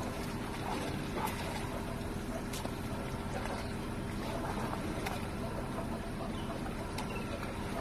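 Steady low drone of an idling engine, with a few faint short ticks.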